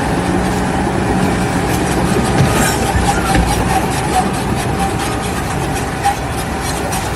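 Loud, steady mechanical rumble with a constant whine and low hum: a large machine running.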